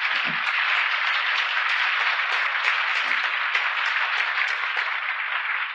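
Audience applauding: a dense, steady patter of many hands that thins slightly near the end.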